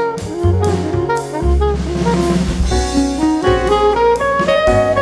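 Instrumental background music: a melody of held notes over a bass line and a steady drum beat.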